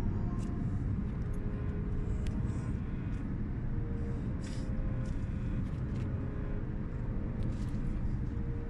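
Steady road and engine noise heard inside the cabin of a car cruising on a highway, a dense low rumble of tyres and engine.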